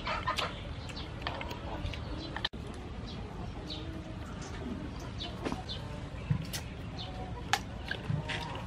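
Eating sounds: sharp clicks of cockle shells being handled and pulled open, with lip smacks, over birds calling in the background.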